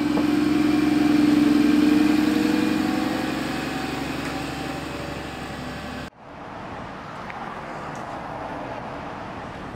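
City transit bus engine pulling away from the stop, its hum rising slightly in pitch, loudest about a second or two in and then fading as it leaves. It cuts off suddenly about six seconds in, leaving quieter background noise.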